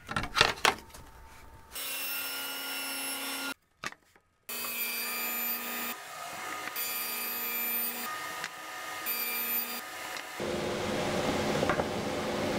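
A few knocks at the start, then a table saw cutting a large MDF board on a crosscut sled, the steady sound of the running blade breaking off and starting again abruptly several times.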